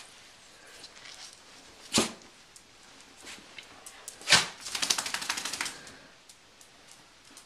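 Bichon frise shaking itself off after a bath: a fast rattle of flapping clicks lasting about a second, after two sharp knocks.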